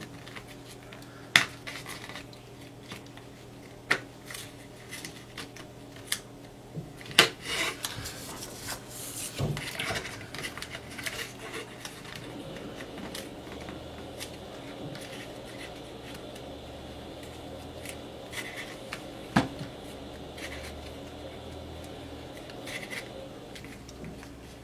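Hand-working a phone LCD assembly: light scraping and rubbing as a plastic card is worked between the screen layers, with a few sharp clicks and taps of tools and parts against the bench.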